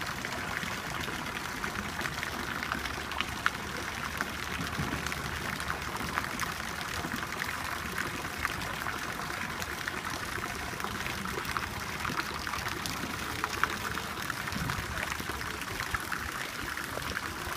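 Fountain water splashing steadily, with faint clicks and scratches of fingers working at a small cardboard box.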